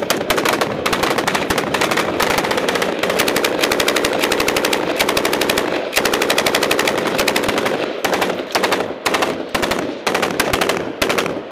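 Belt-fed machine gun fire: long, almost unbroken automatic bursts for about the first eight seconds, then shorter separate bursts that stop near the end.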